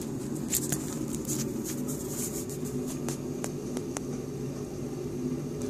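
Steady low machine hum, with light irregular clicks and taps scattered through it.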